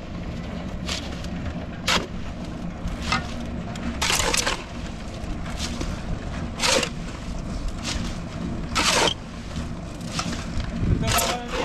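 Steel shovel scraping into a metal wheelbarrow of wet concrete, scooping again and again, a short rasping scrape every second or two, two of them longer. A steady low rumble runs underneath.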